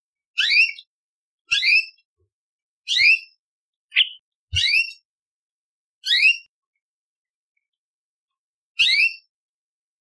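Orange-bellied leafbird calling: short, sharp whistled phrases, each a quick pair of rising sweeps, repeated about every second or second and a half, with one brief single note about four seconds in and a pause of over two seconds before the last phrase.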